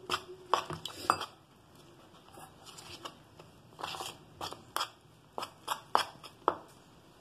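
Spoon stirring gram flour (besan) and water in a plastic bowl, knocking and scraping against the bowl in irregular clicks, about a dozen strong ones.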